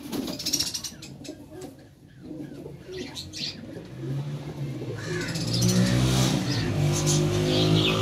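Domestic pigeons cooing: a low, repeated rolling coo that starts about halfway through and grows louder toward the end. A few brief rustles come before it.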